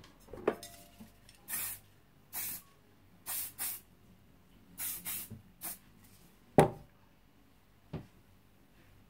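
Aerosol hairspray sprayed in about seven short hisses. A sharp knock about two-thirds of the way in and a softer one a second later.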